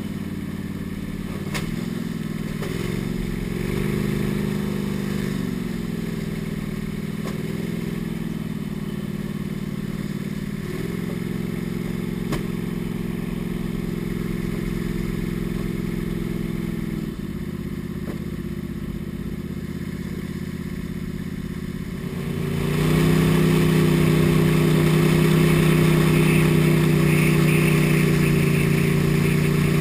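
Flat-bottom boat's motor running under way, its pitch shifting with the throttle; about two-thirds of the way through it opens up and runs noticeably louder.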